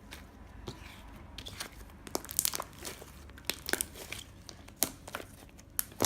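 Irregular crinkling and crackling of something being handled, in short clusters of sharp crackles.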